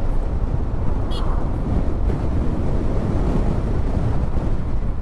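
Steady wind rush on the microphone from travelling along a road, with a vehicle running underneath. A brief high chirp about a second in.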